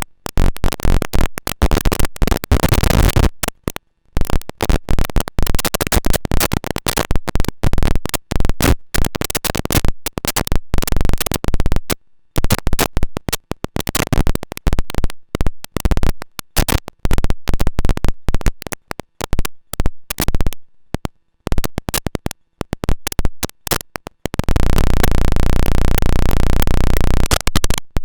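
Eurorack noise module built on square-wave oscillators, a Hexinverter Jupiter Storm-style "Космический шум" (Cosmic Noise), putting out noisy synth sound that chops on and off irregularly in rapid stutters. About 24 seconds in it settles into a steady, loud pitched buzz.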